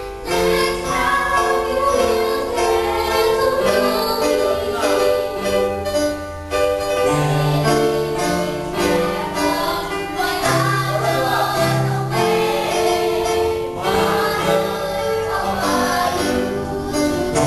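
A group of young girls singing a song together into a microphone over instrumental accompaniment with steady held chords and bass notes.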